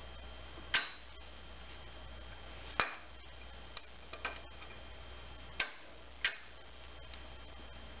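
Sharp metallic clicks, four louder ones a second or two apart with fainter ticks between, as an adjustable wrench turns the exhaust camshaft of a GM 2.2L Ecotec engine clockwise a little at a time against valve-spring tension, bringing it to its timing mark. A low steady hum lies underneath.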